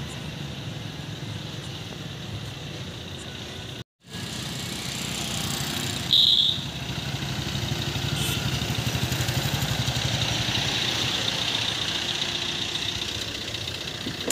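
A car's engine running as the car moves slowly out of a parking lot, its sound growing louder after a short break about four seconds in. A brief sharp, high squeal about six seconds in.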